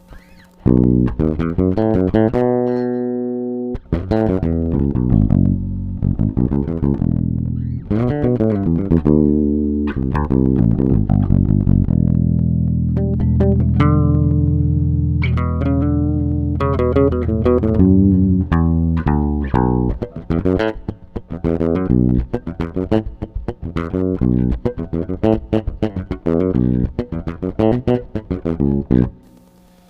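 Ibanez SR Mezzo 200 active electric bass played solo, unaccompanied, on its rear (bridge) pickup alone: a run of plucked notes with some held low notes, then quicker picked lines toward the end.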